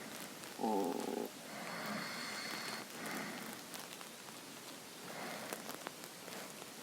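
An empty stomach growling in a sleeping person: one short pitched gurgle about half a second in, the loudest sound here. Softer breathing swells come every couple of seconds over a steady hiss.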